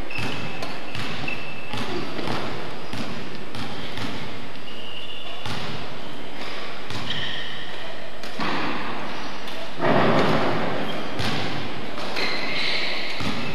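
Badminton doubles play in a large sports hall: rackets striking the shuttlecock and players' footsteps on the court, with scattered voices. There is a louder burst about ten seconds in.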